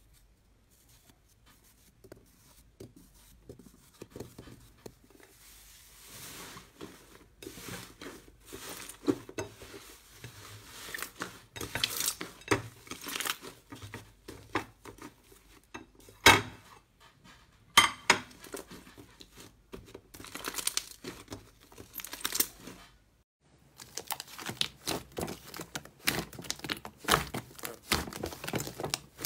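Hands squeezing, stretching and tearing fluffy slime: a crackling, tearing sound full of small pops and clicks, faint at first and louder from about six seconds in. It breaks off briefly near the end, then comes back as hands press thick slime.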